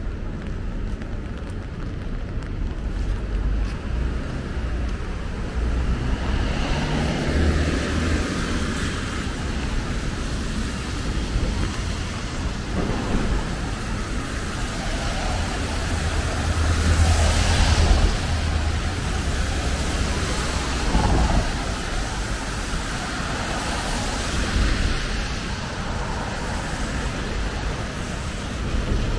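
City street traffic on wet roads: vehicles passing with tyre hiss over a steady low rumble. One vehicle passing a little past the middle is the loudest.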